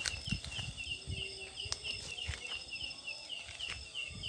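'Ciang ciang' night call of an insect the uploader identifies as the leaf insect Phyllium pulchrifolium (belalang daun): a steady train of short, high chirps, about four a second. Occasional low thumps underneath.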